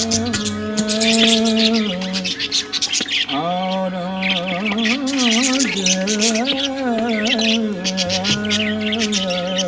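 Caged budgerigars, cockatiels and Java finches chirping and squawking rapidly throughout, over a song with a singing voice gliding between long held notes on a low drone.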